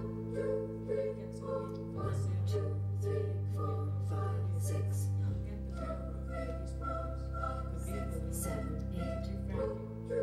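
Music with sustained low bass notes that shift every two to four seconds, a wavering sung melody above them, and high hissing strokes repeating at a steady pulse.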